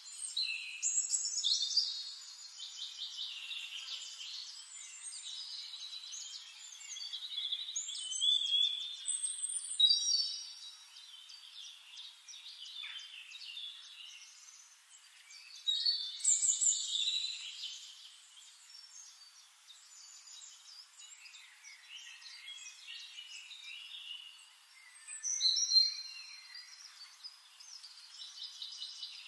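Songbirds singing: high chirps and trills, with a louder burst of song every several seconds and quieter song in between.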